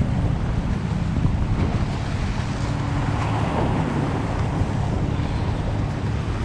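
Steady wind noise on the microphone over sea surf washing against rocks.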